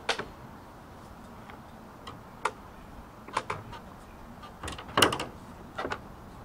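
Aftermarket roof rail being set down on a car roof and pressed into place: a series of separate clicks and knocks against the roof and its mounting points, the loudest about five seconds in.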